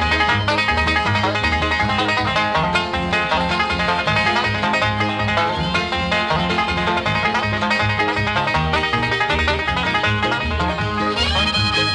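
Background bluegrass-style music with banjo and a steady bass beat.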